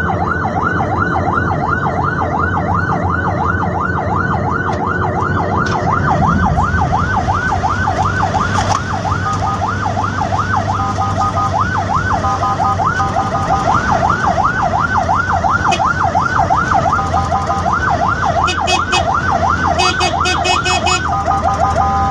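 Electronic emergency-vehicle siren on a fast yelp, about four rising-and-falling sweeps a second, broken several times by a few seconds of a steady multi-note horn tone, the longest near the end. Engine and road noise run underneath.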